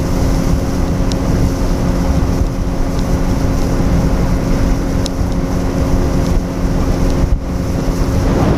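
Bass boat's outboard motor running steadily at speed across the lake, with a steady hum and wind buffeting the microphone.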